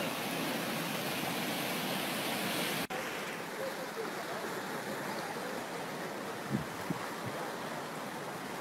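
Flash-flood torrent of muddy water rushing through a desert wadi, a steady rushing noise. It cuts off abruptly about three seconds in and resumes slightly duller, with a couple of soft thumps later on.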